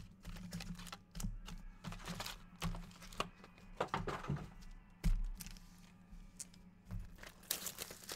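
Handling noises: scattered taps and clicks with light crinkling, and one louder thump about five seconds in.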